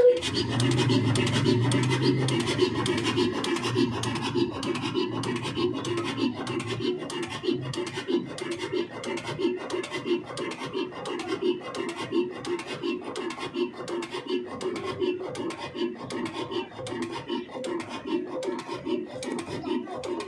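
Ruston-style single-cylinder stationary diesel engine with a large flywheel, running steadily with an even, quick clattering beat.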